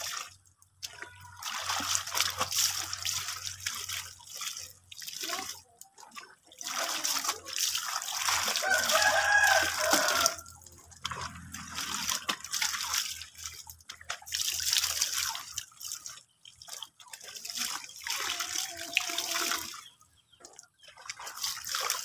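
Laundry being washed and rinsed by hand in a basin of soapy water: wet clothes squeezed, lifted and splashed, giving irregular bursts of splashing and dripping with short pauses between.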